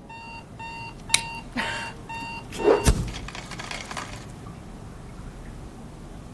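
Alarm clock beeping about two times a second with short electronic beeps. Some knocks come in over it, and about three seconds in a loud thump ends the beeping. A hiss follows and fades out about a second later.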